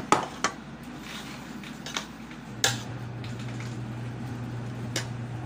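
Dishes and food being handled while eating by hand: several sharp clicks and knocks, the loudest at the very start, over a steady low hum.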